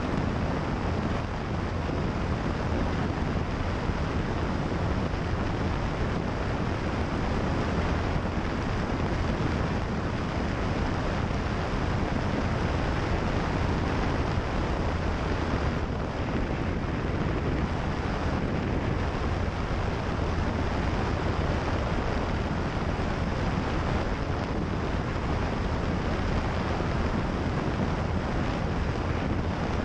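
Steady drone of a single-engine light plane's propeller and piston engine in flight, mixed with heavy wind rushing over an outside-mounted GoPro's microphone.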